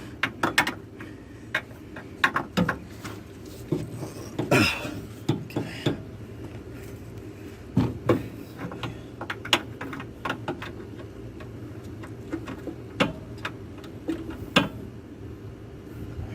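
Breaker bar and 19 mm socket clinking and knocking on the seized castle nut of a Jeep Cherokee track bar as it is strained to crack loose: scattered sharp metal clicks over a steady low hum.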